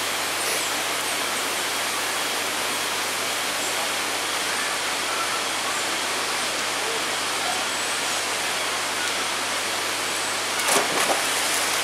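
Steady rush of flowing water, an even hiss without change, with a few short sharp knocks near the end.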